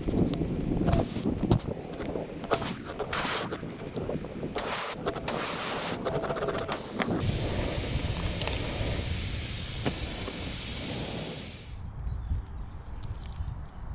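Tire plug reamer being worked into a tire puncture, rasping in short irregular strokes. About seven seconds in, air hisses steadily out of the puncture for about four and a half seconds, then stops suddenly.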